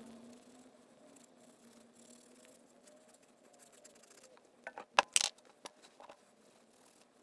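A short cluster of sharp metallic clicks and knocks about five seconds in, from a steel bicycle crank arm being handled against a wooden workbench; otherwise quiet.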